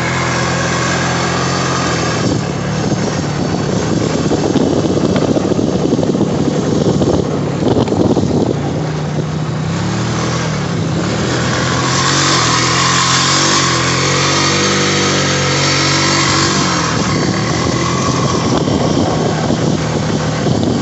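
Honda ATV engine running under way, its pitch rising and falling several times as the throttle opens and closes. A rushing hiss swells over the middle of the ride.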